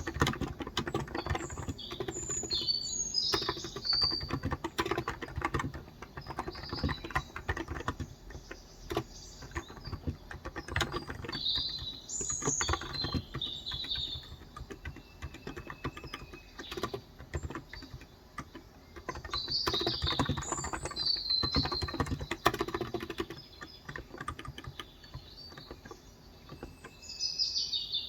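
Typing on a Cox Endeavor electro-capacitive (Topre-style) tenkeyless keyboard with 35 g switches: irregular runs of soft keystrokes with brief pauses. Birds chirp in short bursts about four times.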